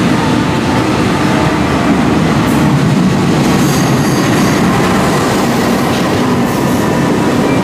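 Diesel-electric locomotive and passenger carriages rolling along the platform: a steady, loud engine and wheel rumble on the rails, with a faint high-pitched wheel squeal about four seconds in.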